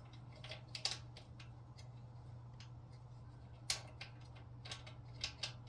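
A few scattered light clicks and taps, as of hand tools and metal parts being handled, with the sharpest one near the middle, over a steady low hum.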